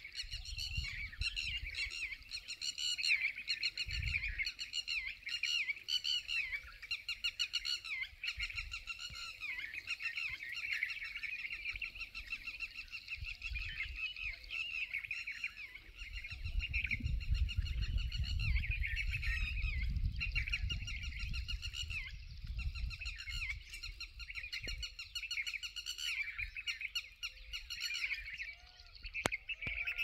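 A dense, continuous chorus of small birds chirping and twittering. A low rumble swells under it in the middle stretch.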